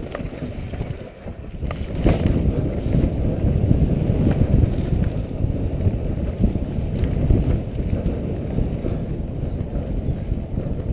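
Wind buffeting a helmet-mounted camera's microphone over the rumble of a mountain bike descending a dirt forest trail at speed. A knock about two seconds in, after which the rumble grows louder.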